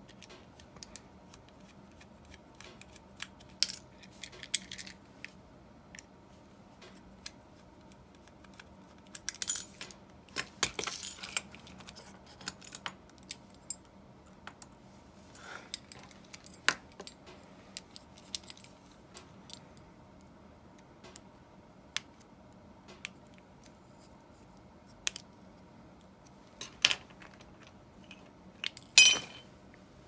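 Small metal parts of an Abu Garcia Ambassadeur 1500C baitcasting reel clicking and clinking as the reel is taken apart with a screwdriver and its side plates and pieces are handled and set down. Scattered single clicks, with a few louder clusters of clinks, over a faint steady hum.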